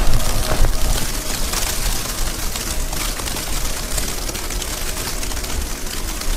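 Strong gusty wind in a snowstorm buffeting the microphone: a rough, uneven low rumble over a steady hiss, loudest near the start and easing slightly after about a second.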